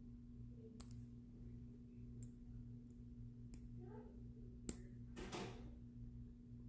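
Handmade gold box-lock clasp clicking as it is worked and snapped shut: five short sharp clicks, the loudest about two-thirds of the way through, followed by a brief scraping rustle of the chain.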